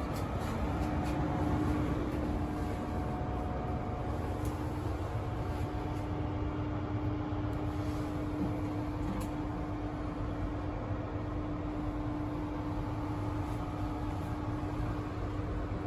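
Steady running hum inside a stationary Intercity 125 (HST) carriage, with a low rumble and one held tone, from the train standing with its power cars supplying power. A few faint clicks and knocks break through now and then.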